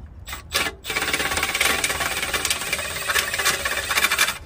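Milwaukee cordless impact driver hammering steadily on a 10 mm oil pan bolt through a swivel socket and extension. It starts about a second in and runs for about three and a half seconds before cutting off.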